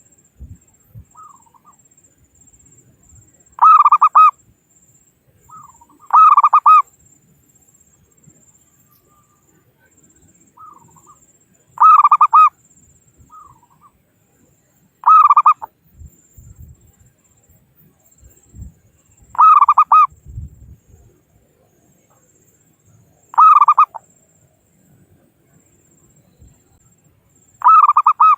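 Zebra dove (perkutut) cooing: seven short, rapid staccato coo phrases a few seconds apart, several of them preceded by a softer single note.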